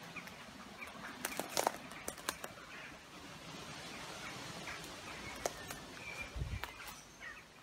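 Footsteps through overgrown grass and brush, with scattered sharp clicks and crackles of twigs and leaves, and a few faint bird calls. A brief low thud comes about six and a half seconds in.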